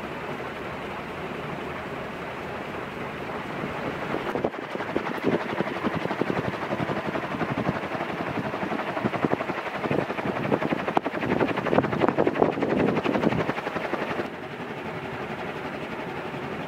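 1984 Nadair Industriel 140 cm ceiling fan running on high speed, its three wide metal blades giving a steady rushing of air. From about four seconds in it grows louder and rougher with a rapid flutter, then drops back to the steady rush a couple of seconds before the end.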